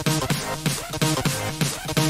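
Background music with a steady beat, in an electronic style.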